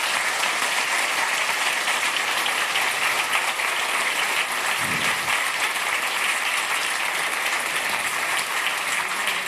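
Audience applauding steadily: the dense patter of many hands clapping at once.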